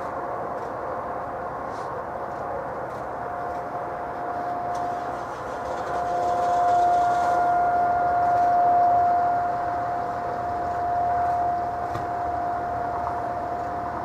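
Distant Federal Signal STL-10 outdoor warning siren sounding a steady tone. It swells louder about halfway through and then fades back.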